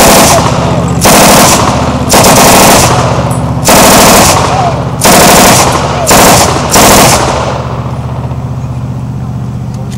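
WWII German belt-fed machine gun firing blanks from a tripod in about seven short bursts of rapid fire, each under a second long, with brief pauses between them. The firing stops about seven seconds in.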